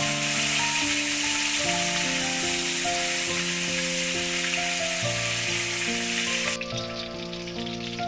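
Whole climbing perch (koi fish) frying in hot oil in a wok, a steady sizzle that stops abruptly about six and a half seconds in, with background music throughout.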